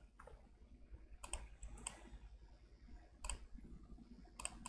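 Computer keyboard keys clicking faintly in a few short clusters as a short text label is typed.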